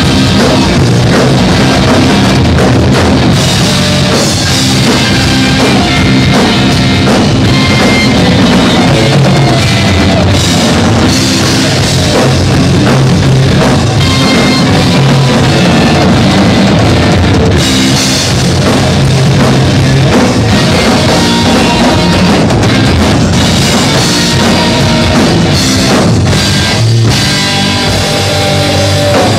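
Loud live rock music: drum kits played with an electric guitar.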